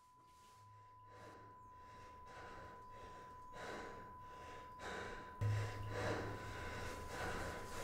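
A young man hyperventilating in panic: quick, gasping breaths, about one and a half a second, growing louder, the sign of an anxiety attack. A faint steady high tone and a low hum run underneath, the hum swelling about five and a half seconds in.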